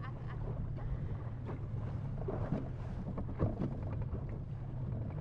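Choppy seawater slapping and splashing against the hull of a small open skiff, with wind rumbling on the microphone.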